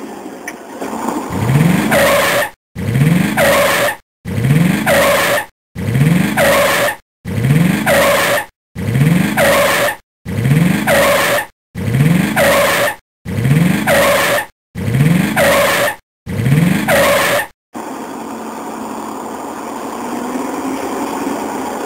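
A vehicle engine revving up eleven times in a row. Each rise in pitch lasts about a second and a half and breaks off into a moment of dead silence. Near the end the engine goes back to running steadily.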